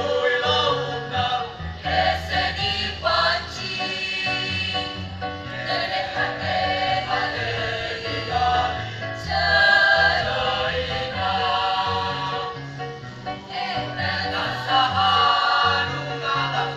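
Choir singing in harmony, with held notes over a low bass line that steps from note to note.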